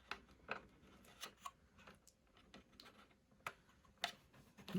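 Faint, scattered small clicks and taps from hands handling a small portable speaker's plastic parts and wiring while fitting the battery connector, about seven separate clicks at uneven intervals.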